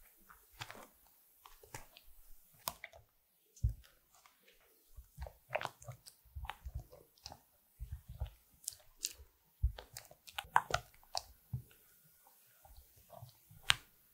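Silicone spatula stirring and folding thick lemon curd in a glass bowl: irregular wet squelches, with soft scrapes and taps against the glass.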